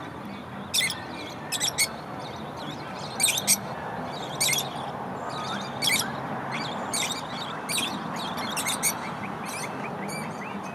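Small songbirds chirping, many short high calls following one another in quick, irregular succession over a steady background hiss.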